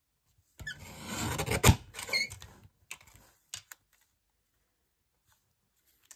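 Paper-craft handling at a work table: about two seconds of cardstock rustling with one sharp click in the middle, then a few light taps.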